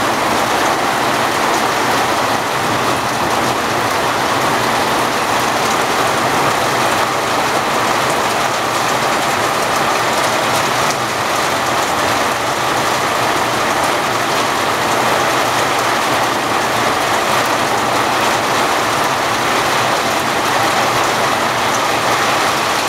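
Heavy rain falling steadily and splashing onto a wet flagstone patio and its puddles.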